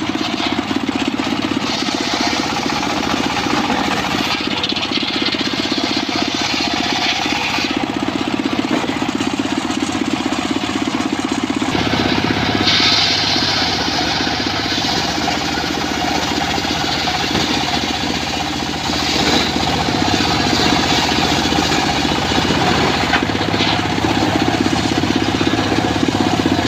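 Circular saw running continuously while cutting wood. A harsher high-pitched sound swells for stretches of a few seconds as the blade works through the wood, over the steady running sound of the machine.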